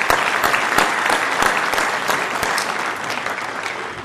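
Audience applauding with dense clapping that slowly dies down toward the end.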